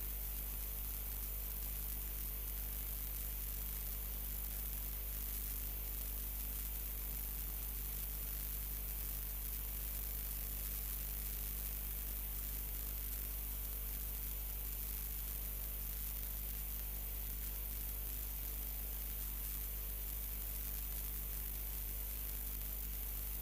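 Steady electrical hum and hiss from the broadcast audio line, unchanging throughout, with no other sound on top.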